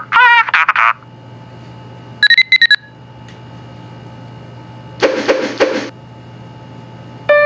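Smartphone notification tones previewed one after another. First a short warbling tone, then a quick run of high beeps a couple of seconds in, a buzzy croaking blip about five seconds in, and near the end a melodic ringtone chime begins.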